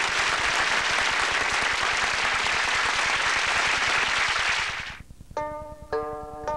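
Applause for about five seconds, cut off abruptly. About half a second later plucked-string music begins, a few picked notes at a time.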